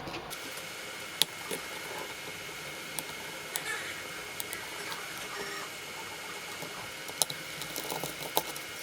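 Scattered light clicks and taps of small screws and plastic parts being handled and unscrewed during disassembly of an RC truck's shock tower, over a steady faint hiss. The sharpest click comes a little over a second in, with another about seven seconds in.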